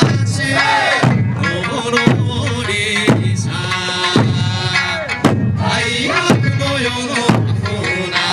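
Okinawan eisa music: a folk singer's voice over drums struck in unison about once a second, in a steady beat.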